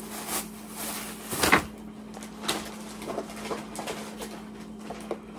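Plastic grocery bag rustling and packages being handled as groceries are taken out, with a louder rustle about a second and a half in, over a steady hum.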